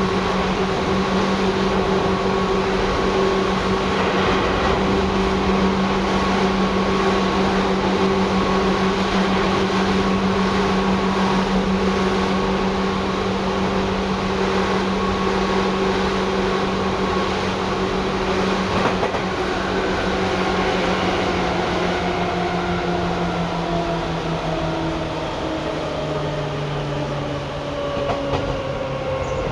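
Running sound of a Seibu 2000 series electric train, an armature-chopper-controlled commuter set: continuous rumble with a steady motor and chopper hum. In the last several seconds the hum steps down in pitch and a whine falls slowly as the train slows.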